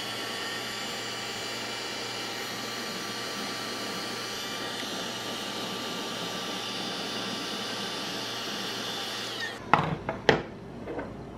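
Electric heat gun running on its low setting, a steady whir of fan motor and blowing air, switched off about nine and a half seconds in. A couple of sharp knocks follow as it is set down on the wooden workbench.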